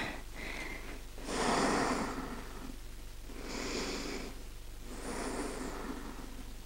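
A woman breathing slowly and audibly while resting in child's pose after plank holds: three long breaths about two seconds apart, the first the loudest.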